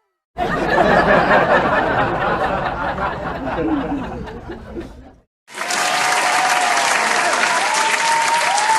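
Two stock crowd sound effects back to back. First comes applause and crowd noise that fades down and cuts off about five seconds in. After a brief gap a second clip of loud, steady applause starts, with cheering and whoops over it.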